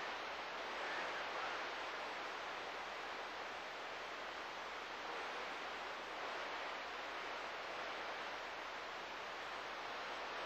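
Steady static hiss from a CB radio receiver on an AM channel, with no voice on it.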